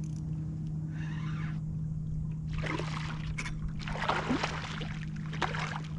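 Water splashing in several short bursts close to a kayak, over a steady low hum.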